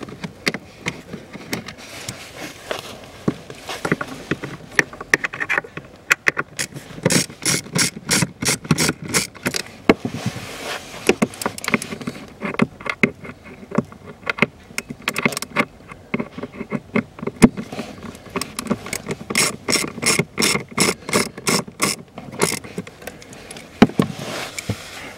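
Hand-turned ratcheting Torx driver clicking in several quick, regular bursts with short pauses between, as self-tapping screws are backed out of a plastic trim panel.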